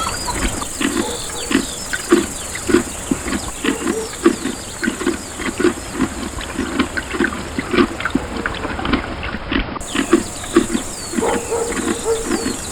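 A horse making short, evenly repeated low sounds, about two or three a second.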